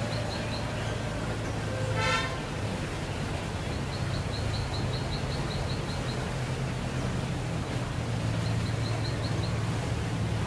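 Outdoor ambience with a steady low hum, broken about two seconds in by a single short vehicle horn toot. Three runs of rapid, high-pitched chirping come and go.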